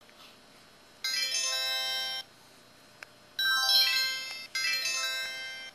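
LG KP6500 mobile phone's built-in sound effects played through its speaker: three short electronic melodic jingles, the first about a second in, the other two back to back near the end.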